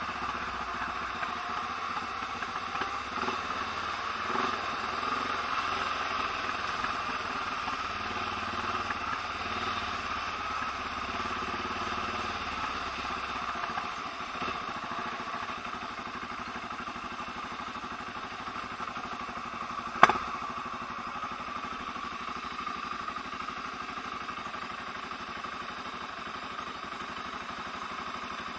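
Trail motorcycle's engine running steadily at low revs, heard from on the bike. There is one sharp click about two-thirds of the way through.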